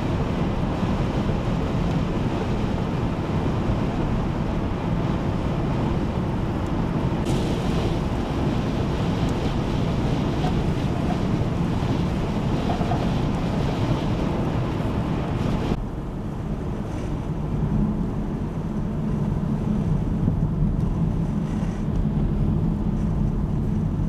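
Strong blizzard wind blowing across the microphone, mixed with the steady noise of vehicles on a snowy highway. The sound changes abruptly about 7 and 16 seconds in. The last part is a steadier low drone, as of driving through the white-out.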